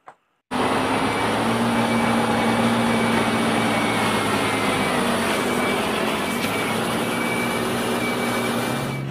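A heavy multi-axle dump truck's engine running as the truck moves slowly past, a steady drone with a thin high whine, starting about half a second in.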